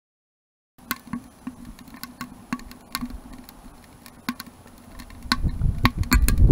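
Wood fire crackling inside a homemade propane-tank wood stove: irregular sharp pops and snaps, starting about a second in. A low rumble builds up near the end.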